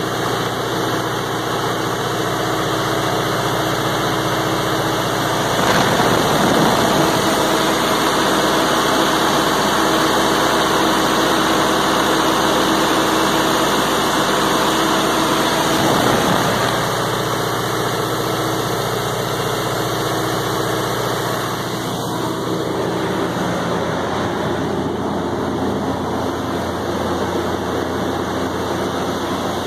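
John Deere 4045HF285 four-cylinder turbocharged diesel engine of a 95 kW generator set running steadily with a constant hum. It grows louder about six seconds in and eases back after about sixteen seconds.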